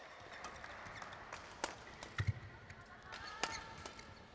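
Quiet badminton-hall ambience between points: a steady faint room haze with a few sharp clicks, a dull thump about two seconds in, and a brief squeak a little past the three-second mark.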